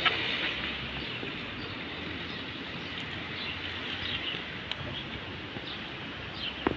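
Steady outdoor background noise with a low rumble, with a few faint short high chirps in the latter half.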